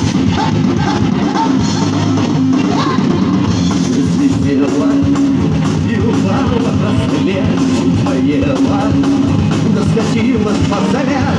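Live amplified rock band playing steadily on a drum kit and electric guitars.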